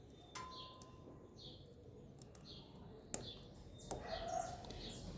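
A small bird chirping over and over, a short falling chirp roughly every half second, with two sharp clicks, the second about three seconds in.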